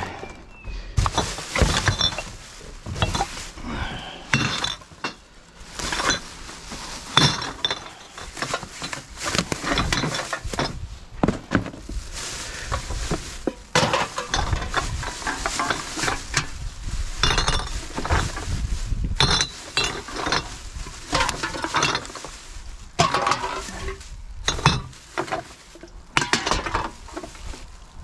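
Empty glass bottles and aluminium drink cans clinking and clattering irregularly as they are handled in a heap of recyclables.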